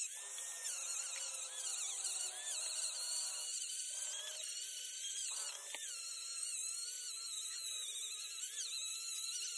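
High-speed rotary carving tool running against wood, a high whine whose pitch wavers up and down with the load.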